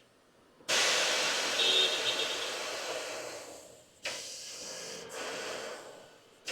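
Compressed air hissing from a shop air line in two bursts. The first starts suddenly and fades over about three seconds; the second starts about four seconds in and fades out too.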